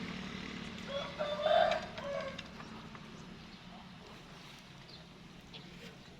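A rooster crowing once, about a second in, over a steady low hum.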